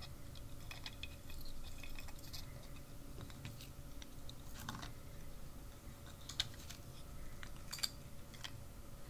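Faint handling noise: scattered small clicks and scratches of a plastic camera housing, circuit board and wires being fitted together by hand.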